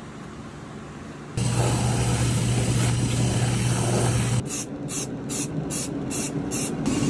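Shoe finishing machine running, its rotating brush buffing a leather boot, with a steady low motor hum; it starts suddenly and stops after about three seconds. Then an aerosol waterproofing spray hisses onto the boot in several short bursts.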